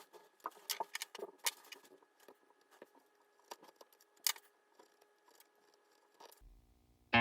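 Faint knife cuts and scrapes on wood: a quick run of small clicks and scratches in the first two seconds, then sparser ones, with one sharper click about four seconds in.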